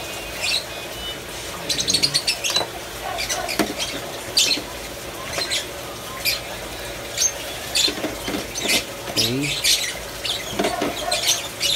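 Lovebirds chirping in a rapid string of short, high-pitched calls.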